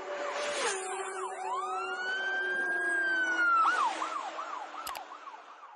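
An emergency-vehicle siren. About a second in it gives one long wail that rises, holds and falls, then switches to a fast up-and-down yelp of about three cycles a second, fading out near the end.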